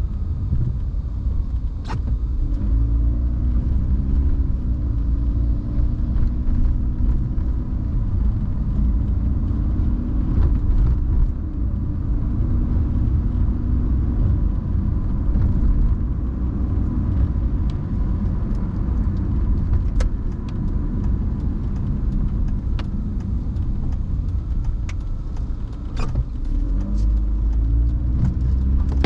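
Car driving in the rain: a steady low road and engine rumble, with the engine's pitch rising and falling several times as it speeds up and slows, and occasional sharp ticks.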